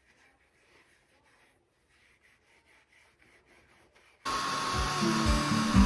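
A rag wiping a wax-and-oil finish onto a leather sheath in quick, faint repeated strokes. About four seconds in, loud music with a beat starts abruptly.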